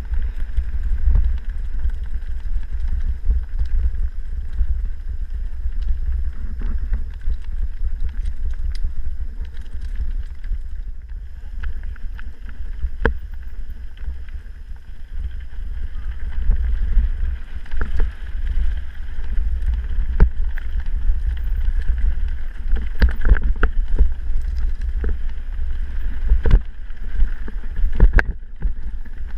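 Wind rumble on a mountain bike's camera microphone while riding a dirt singletrack, with the bike rattling and knocking over bumps in the trail. The knocks come thicker near the end.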